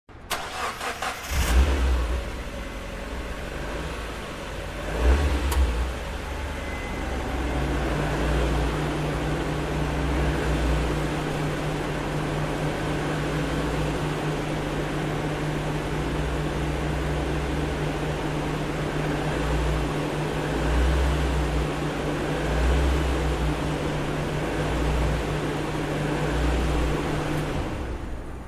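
Car engine being started: a short crank, the engine catches about a second and a half in, revs up once about five seconds in, then settles into a steady idle until it cuts off.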